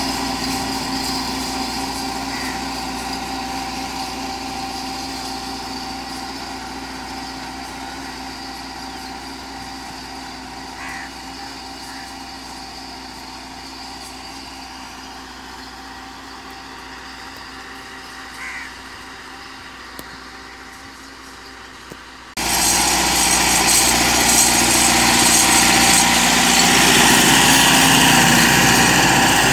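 Massey Ferguson 375's four-cylinder diesel engine running steadily under load as the tractor pulls an 11-tine cultivator, slowly fading as it moves away, with a few short bird calls. A little over twenty seconds in, the sound cuts suddenly to the same engine loud and close.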